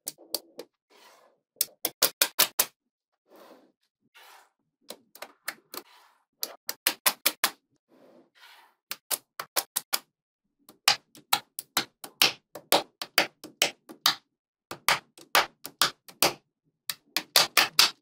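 Small magnetic balls clicking sharply as they snap together, in quick runs of four to six clicks, with soft rustling of the balls between the runs.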